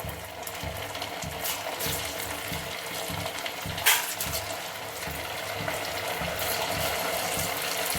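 Boiled colocasia (taro) pieces sizzling as they deep-fry in hot oil in a kadai, being added one by one. A steady frying hiss with a few sharp taps, the loudest about four seconds in, and the sizzle grows a little louder toward the end.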